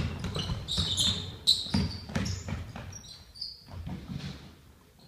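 Basketball bouncing and sneakers squeaking on a hardwood gym floor during play, a quick string of thuds and short high squeaks that dies down near the end.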